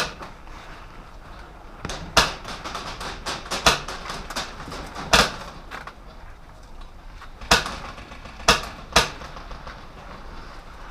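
Airsoft gunfire: about seven sharp cracks at irregular intervals, with a patter of lighter clicks between about two and four and a half seconds in.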